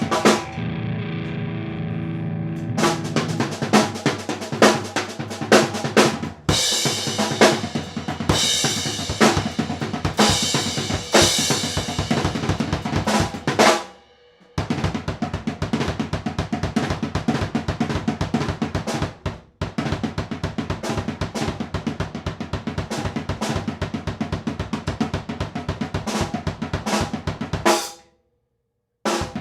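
Music driven by a busy drum kit, with bass drum and snare beating steadily over pitched instruments. It drops out briefly about halfway through and stops for about a second near the end before starting again.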